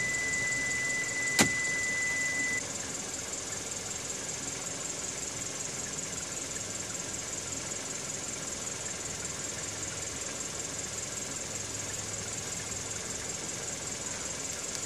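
Car electronics: a steady high-pitched beep for the first two and a half seconds, with one sharp click about a second and a half in. After the beep stops, only a steady quiet hum with hiss remains.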